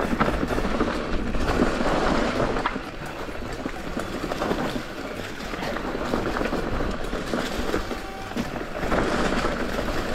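Rocky Mountain Instinct mountain bike rolling down a dry-leaf-covered forest singletrack: tyres crunching over leaves and stones, with a steady clatter of the bike's chain and parts rattling over the bumps.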